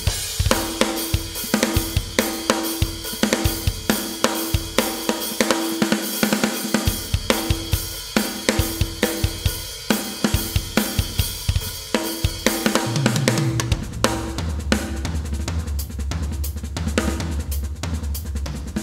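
EZdrummer 2 software drum kit played live from Roland TD-30 electronic drum pads: a steady beat of kick, snare, hi-hat and cymbals. About two-thirds of the way through the playing changes, and a deep sustained low part of shifting notes comes in under the hits.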